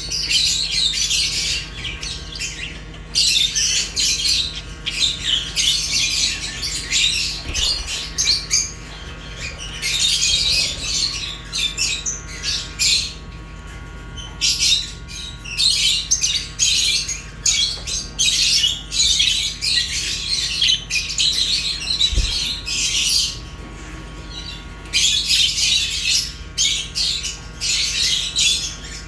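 Budgerigars and lovebirds chirping and chattering together with sharp squawks, in busy bouts of a few seconds that come and go. A steady low hum runs underneath.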